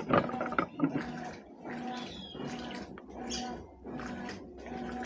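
Consul CWS 12 top-loading washing machine agitating its load, water sloshing through the clothes, with a short motor hum at each change of direction about once a second. The splashing is strongest in the first second.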